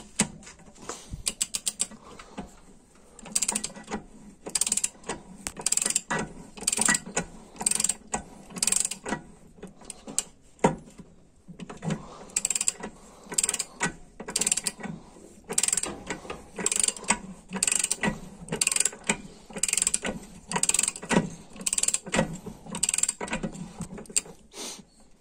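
Ratchet wrench clicking as it is swung back and forth in short strokes, tightening the transmission's output gear bolt. A quick run of clicks about a second in, then short bursts of clicks about once a second.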